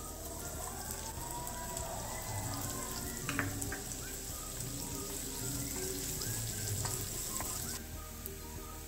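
Chopped onion frying in a little hot oil in a non-stick pan: a steady sizzle with scattered small crackles.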